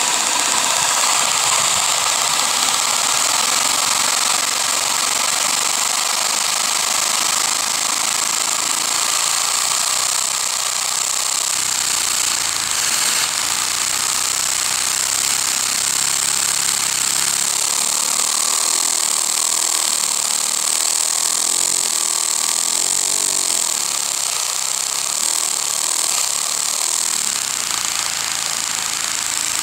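Lego vacuum engine running on a vacuum cleaner's suction, its plastic parts clattering rapidly over the steady rush of air through the hose. A fainter whine drops out for several seconds about halfway through and then returns.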